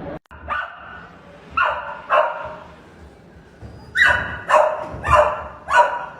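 A dog barking in short calls: three spaced barks, then four in quicker succession and louder in the second half.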